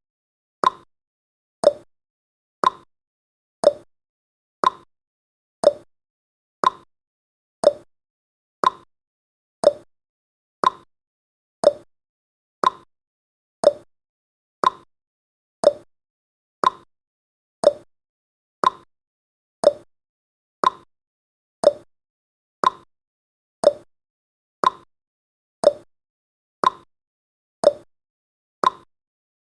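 Clock-style tick-tock sound effect of a countdown timer: short, sharp ticks about once a second, alternating between a higher and a lower tick.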